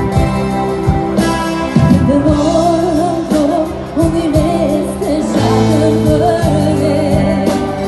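Live band playing loud amplified music with drums, and a voice singing over it from about two seconds in.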